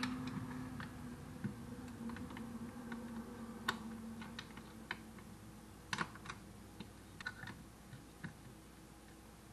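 Scattered light clicks and metallic taps of a wrench and loose parts being worked on a power seat's metal track mechanism, with a couple of sharper clicks around the middle.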